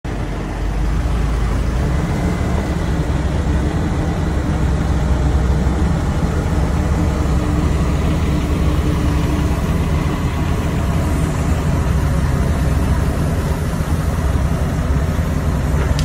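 Mack truck's diesel engine running steadily, powering the hydraulics of a truck-mounted Serco 7500 grapple loader as it lifts storm debris.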